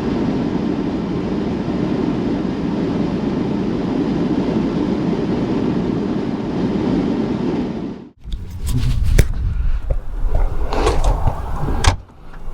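Steady rumble of a car driving along a highway, road and wind noise. It cuts off abruptly about eight seconds in, followed by a few knocks and clicks.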